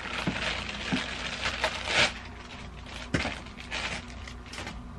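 Plastic packaging bag crinkling and rustling in irregular bursts, with a few sharp ticks, as a sewing machine's power cord and foot pedal are unwrapped from it.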